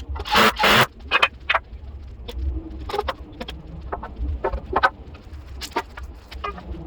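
Woodworking workshop handling sounds: irregular knocks, clicks and scrapes of wooden parts and tools being worked at a bench, with a loud scrape about half a second in, over a steady low hum.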